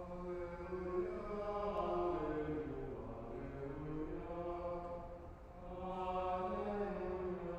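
Slow liturgical chant sung in long held notes, with a short pause about five seconds in before the singing resumes.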